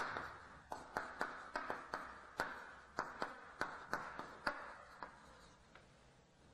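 Chalk on a blackboard, writing a word: a quick run of sharp taps, about three a second, with light scratching between them, stopping about five seconds in.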